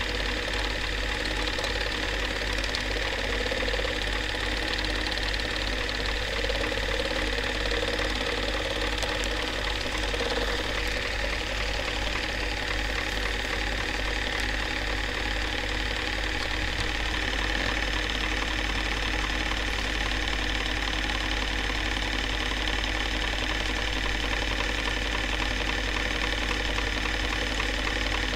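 Film projector running: a steady, fast mechanical clatter over a constant low hum.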